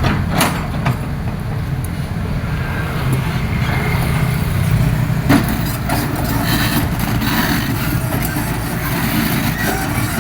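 Excavator's diesel engine running steadily, with scattered knocks and one sharp knock about five seconds in.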